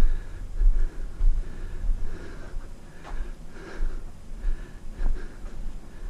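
A person breathing audibly while walking through a tunnel, with soft scuffs and a few faint knocks, over an uneven low rumble of handling noise on the handheld microphone.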